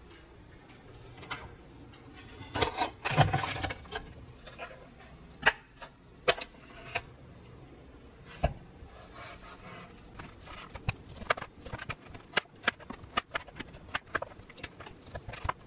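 Kitchen knife cutting frozen pork shoulder on a plastic cutting board: scattered knocks and clatter of the blade and meat pieces in the first half, then a quick run of knife strokes tapping the board in the second half.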